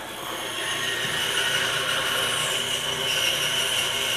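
Woodworking power tool running with a steady high whine, getting louder about half a second in.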